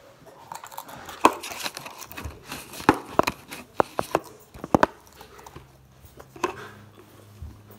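A series of sharp knocks and clicks from objects being handled and set down close to the microphone, some coming in quick pairs, with light rustling between them.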